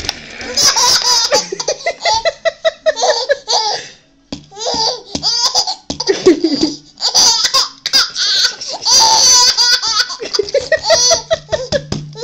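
A baby laughing hard, in repeated bursts of belly laughs and giggles, with the crinkle and slosh of a plastic water bottle being shaken in between.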